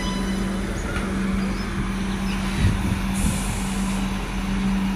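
Adelaide 3000/3100 class diesel railcar running with a steady low engine drone, a single thump about two and a half seconds in, then a short burst of air hiss.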